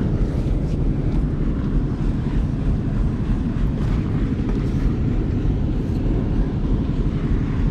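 Steady low rumble with no clear events, the kind made by wind buffeting the microphone or a nearby engine.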